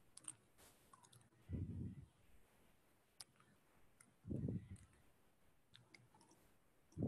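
Near-silent room tone with faint scattered clicks and three soft, low puffs about three seconds apart.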